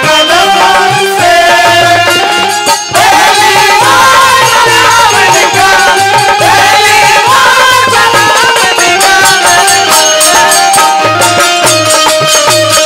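Live folk band playing an instrumental interlude: a sustained, wavering melody over a steady drum beat with a jingling rattle.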